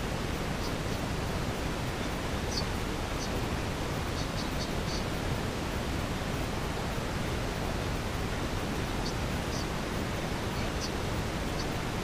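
Steady, even rushing noise from the GoPro's poor audio recording, with nothing else clear through it. A few faint, short high chirps are scattered through it.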